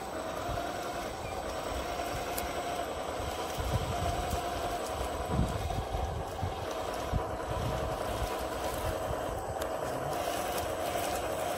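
Small engine of a radio-controlled Cat D9 crawler tractor running steadily while the model crawls through dry leaves and brush towing a log trailer, with uneven low rumbles and a few thumps from the tracks and load.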